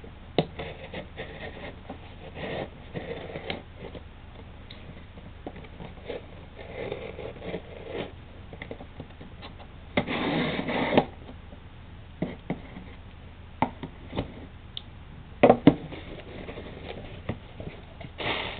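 A cardboard shipping box being opened by hand: scattered taps and knocks with scraping and rustling of cardboard. It includes a louder noisy scrape lasting about a second, ten seconds in, and two sharp knocks a few seconds later.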